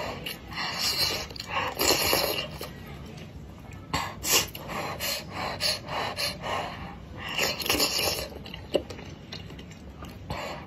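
Close-miked person slurping noodles and dumplings from a spicy broth, with several airy slurps and wet chewing and lip smacks between them.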